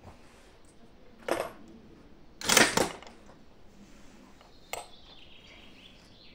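Gunshots on a covered shooting range: a sharp report about a second in, a louder one with a short echo about two and a half seconds in, and a fainter crack near five seconds.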